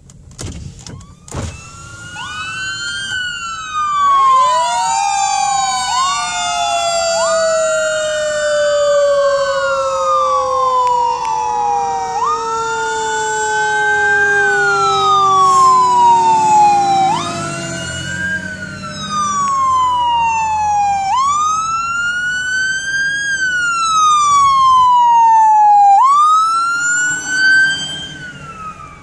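Fire apparatus sirens wailing. One siren rises quickly and falls slowly, over and over every few seconds. A lower second siren winds down slowly over about a dozen seconds. The sirens grow much louder a few seconds in.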